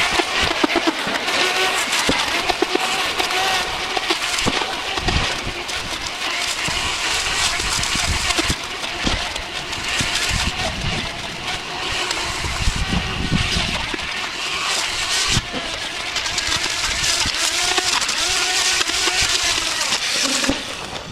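Ryobi OBC1820B 18V cordless brush cutter running steadily, its motor whining as the cutting line thrashes through grass and weeds, with scattered knocks as it strikes stems.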